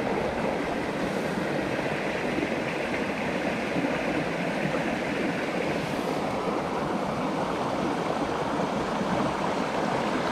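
Small mountain creek flowing over rocks and a low cascade, a steady rush of water heard up close.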